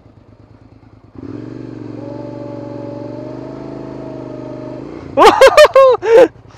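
Suzuki SV650S V-twin engine ticking over quietly, then held at steady high revs for about four seconds while the bike is stuck in soft moorland moss. Near the end come about five very loud short bursts, each rising and falling in pitch.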